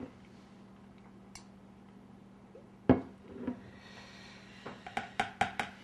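Metal tablespoon knocking and clinking against a plastic bowl while stirring sauce: one sharp knock about three seconds in, then a quick run of light clicks near the end.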